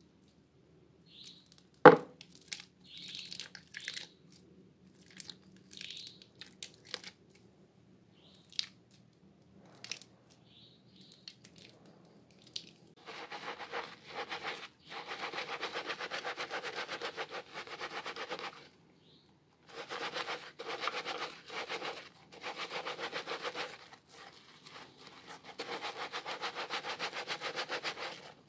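Hands crushing a soaked bar of soap into crumbs, with scattered crackles and one sharp crack about two seconds in. From about halfway, sponges are squeezed in soapy lather: rapid wet squishing in runs of a few seconds with short pauses between.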